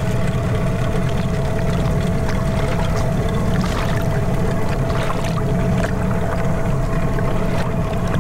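Boat engine running steadily at low speed, a constant low hum, with some light splashing of water.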